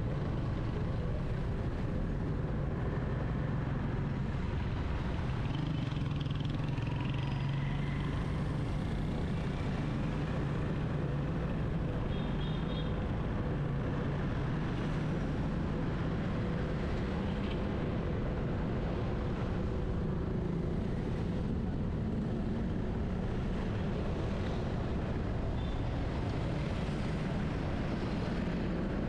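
Car driving through city traffic: steady engine and road rumble with street traffic around it.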